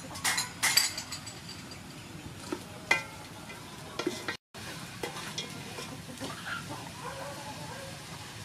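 Duck meat sizzling in a metal pot while a ladle stirs it, clinking and scraping against the pot, with several sharp clinks in the first second and a few more around the middle.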